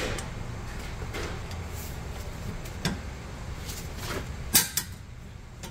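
A few sharp metallic clicks and clinks of a socket and extension being fitted onto a rear brake caliper bolt and a breaker bar being seated on it. The loudest clink comes about four and a half seconds in, over a low background hum.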